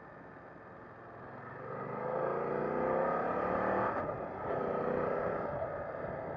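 BMW F 900 R's parallel-twin engine pulling hard as the bike accelerates, its pitch rising; about four seconds in it breaks off briefly for an upshift, then pulls again and eases off near the end.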